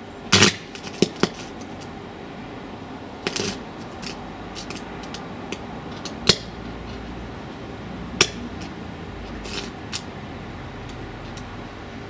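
Arc-welder electrode arcing against a ball grid array chip on a circuit board: irregular sharp crackles and pops as the arc strikes and breaks, loudest about half a second in and again around six and eight seconds in, over a steady low hum.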